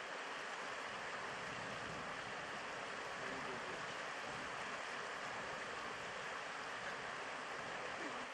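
Steady rushing noise, even and unbroken, with faint voices now and then in the background.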